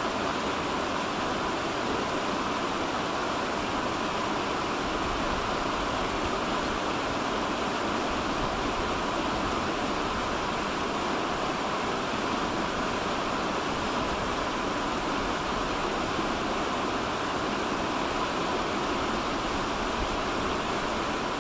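Fast river water rushing steadily over rocks, an even, unbroken roar of whitewater.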